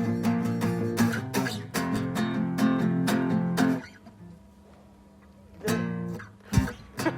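Guitar strummed in a steady rhythm that breaks off about four seconds in, leaving a quiet gap of nearly two seconds before the chords start again. A single sharp low thump comes near the end.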